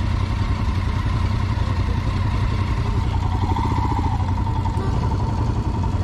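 Motorcycle engine running steadily under way, a continuous low drone.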